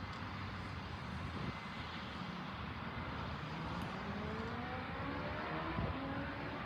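Steady rushing engine noise, with an engine's pitch climbing steadily from about halfway through, as when it spools up or accelerates.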